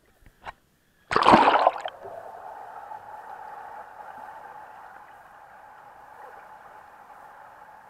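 Swimming-pool water splashing loudly over an action camera as it goes under, about a second in, after a couple of small splashes. It is followed by a steady, muffled underwater rushing noise with a faint hum, slowly fading while the camera stays submerged.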